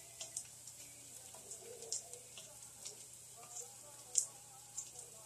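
A wooden spoon stirring in a metal saucepan, with light, irregular ticks and clicks about twice a second as it knocks and scrapes the pot; the loudest click comes a little after four seconds in.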